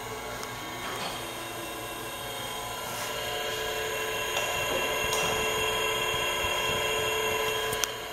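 Lenze MCA-series servo motor running on a bench test, an electric whine of several steady tones that grows slowly louder. A click near the end, where the whine drops away.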